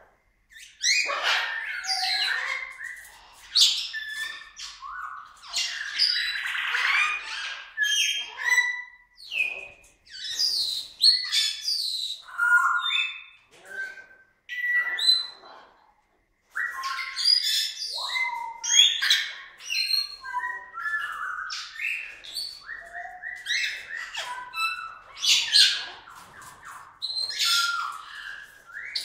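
Parrot calls: harsh squawks mixed with chirps and short whistles, some sliding up or down in pitch, coming in runs with short pauses.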